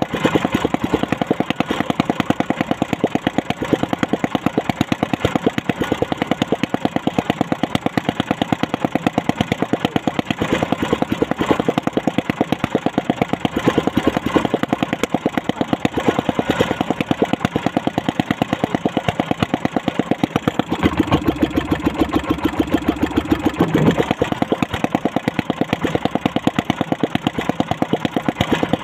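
Small boat engine idling steadily with a rapid, even putter, its low rumble swelling briefly about three-quarters of the way through.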